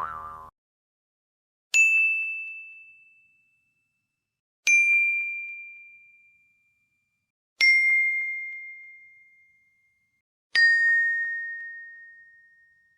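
Four single bell-like dings about three seconds apart. Each is a bright struck tone that rings out and fades over about two seconds, and each is a step lower in pitch than the one before, making a slow descending chime.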